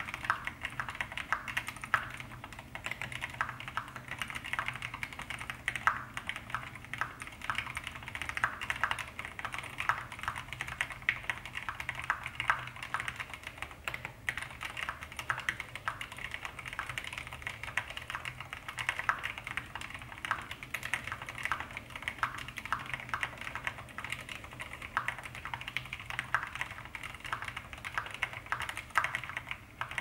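Continuous fast typing on a TOFU HHKB mechanical keyboard with lubed Zealios V2 switches, a dense run of key clicks and thocks with a short pause about halfway. This is the keyboard after its sound mods: foam and tape in the case, plate foam and a cotton-stuffed spacebar.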